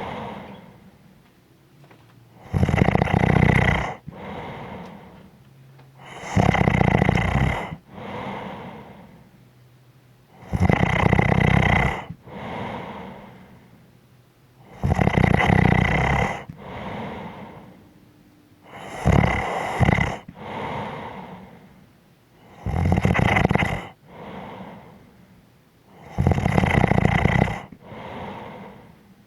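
A person snoring in a slow, regular rhythm: a loud rasping snore on each breath in, about every four seconds, each followed by a softer breath out. There are seven snores in all, and one about two-thirds of the way through breaks into two short pulses.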